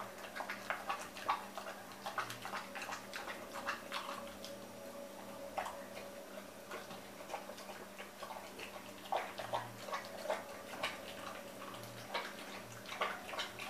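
Dog eating a wet chicken-liver and rice mash from a stainless steel bowl: irregular wet smacks and laps, several a second, with short pauses.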